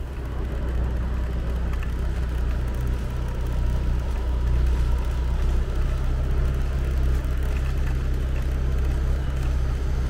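Motorcycle engine running at a steady speed while being ridden, with a low steady hum and road and wind noise.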